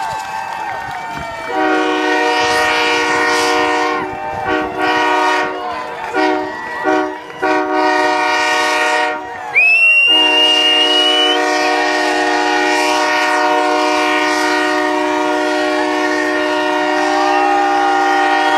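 A train-style air horn sounds a multi-note chord over a cheering crowd. It gives one long blast, then several short blasts, then a long held blast through the second half. A brief rising whistle sounds about halfway.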